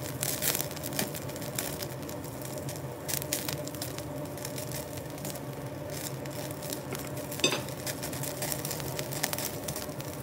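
Wagyu beef sizzling on the wire mesh of a tabletop yakiniku gas grill, crackling and popping as its fat drips onto the burner and flares up, over a steady low hum. One sharper click about seven and a half seconds in.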